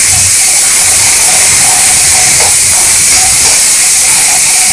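Chopped tomatoes and onions frying in ghee in a kadhai, sizzling with a loud, steady hiss while a metal spatula stirs them.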